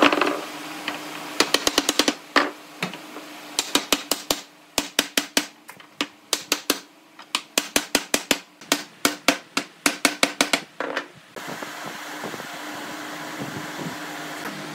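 Hammer taps on wood: a long series of sharp strikes, several a second in quick runs, that stop about eleven seconds in. A steady low hum runs underneath.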